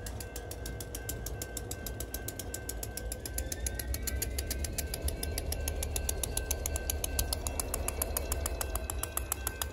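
Union Pacific EMD GP60 diesel locomotive with a 16-cylinder 710 two-stroke engine, running low and rolling slowly past close by, its rumble slowly getting louder. Over it runs a rapid, even clicking about eight times a second and a faint steady whine.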